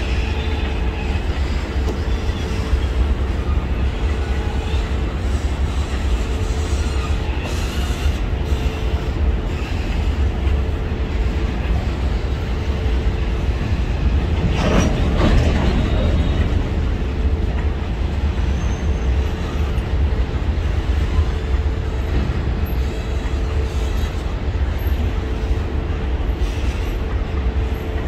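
A long Indian Railways goods train's wagons rolling past at close range: a steady, heavy rumble with wheel clatter and a thin steady whine over it. About halfway through, a louder clattering surge passes.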